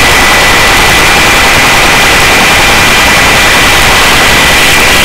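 Search-and-rescue helicopter running steadily at a hover, a loud constant rush of turbine and rotor with a steady high whine over it, heard at the open cabin door.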